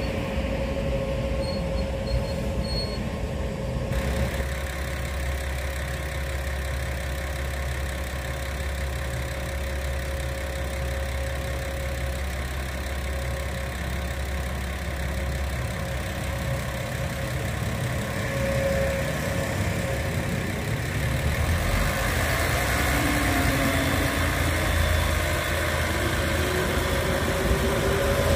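JR 381-series electric limited-express train moving slowly along a platform: a steady running hum with a held whine, growing louder near the end.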